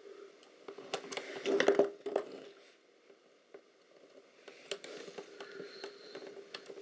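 Small clicks, taps and scrapes of hand tools and fingers working on a Lomo LC-A camera's metal shutter plate and body parts, as it is being taken apart. They come in scattered bunches, with a short quiet pause in the middle.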